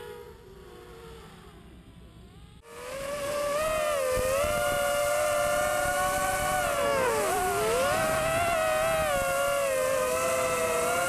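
FPV mini quadcopter's Sunnysky 2204 2300kv brushless motors spinning 5-inch GemFan props. For about the first two and a half seconds it is heard only faintly from ground level. Then the sound cuts abruptly to the onboard camera: a loud, steady multi-toned whine whose pitch bends with throttle, dipping and rising again about halfway through.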